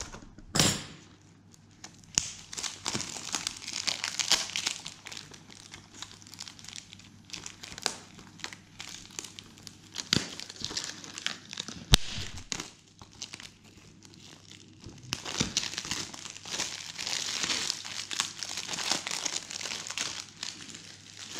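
Plastic shrink-wrap being torn and peeled off a Blu-ray case: crinkling cellophane with scattered sharp clicks, busiest in the last few seconds.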